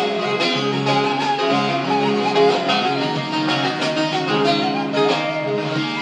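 Instrumental break of a Turkish song's backing track: a string melody on violin and plucked strings over sustained lower accompaniment.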